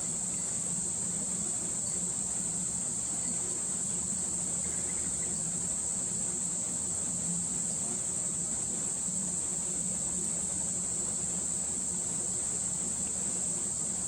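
Steady, unbroken high-pitched insect chorus, a continuous shrill trill, with a faint low hum underneath.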